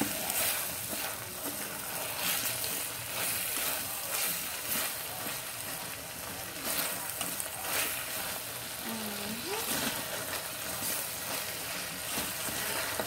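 Chicken pieces and chopped vegetables sizzling in a stainless steel pot as they are stirred with a slotted spatula. A steady frying hiss runs under repeated short scrapes of the spatula against the pot.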